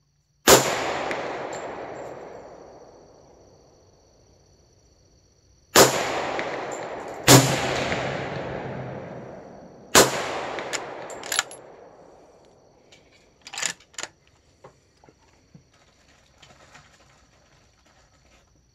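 Four loud gunshots, each followed by a long rolling echo that fades over two or three seconds: about half a second in, near six seconds, a second and a half after that, and near ten seconds. A few fainter sharp cracks follow between about eleven and fourteen seconds in.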